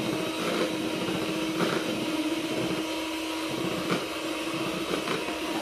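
Electric hand mixer running steadily, beating eggs, sugar and SP cake emulsifier into sponge-cake batter in a plastic bowl, a steady motor hum with a couple of brief knocks.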